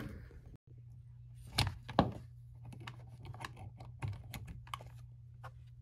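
Power cord and plug handled and pushed into a wall outlet: two sharp knocks about a second and a half in, then a run of light, irregular clicks and rattles.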